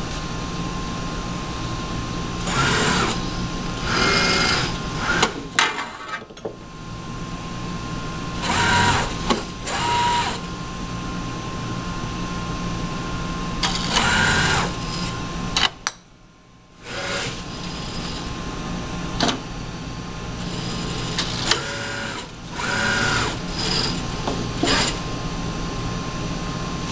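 Six-axis robot arm's servo motors whirring in short stretches as the arm moves, over a steady electrical hum with a thin high whine. There are a few sharp clicks, and the hum cuts out for about a second past the middle.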